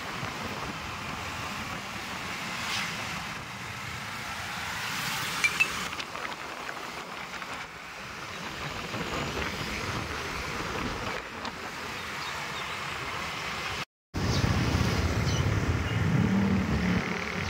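Steady road and wind noise from a moving vehicle. About 14 s in, the sound drops out for a moment and comes back louder, with a low engine hum.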